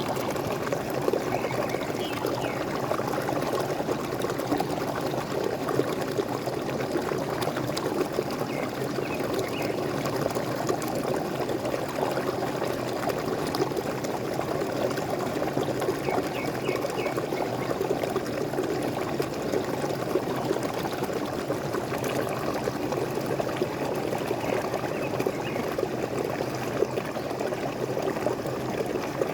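Steady splashing and gurgling of falling water from a small waterfall, with faint bird chirps now and then.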